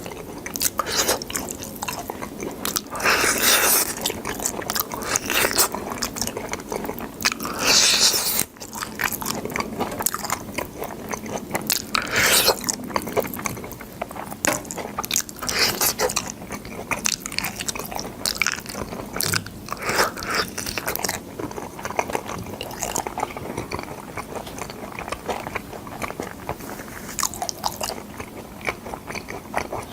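Boiled sword bean pods being bitten and chewed close to the microphone: irregular crisp crunches every second or two over steady wet chewing.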